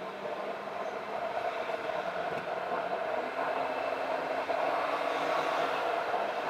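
Road and engine noise from a moving car: a steady rushing hum that grows gradually louder.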